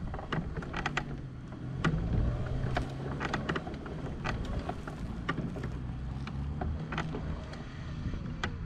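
Power wheelchair driving and turning on an asphalt path: the drive motors give a steady low hum, with scattered clicks and rattles from the chair as it rolls.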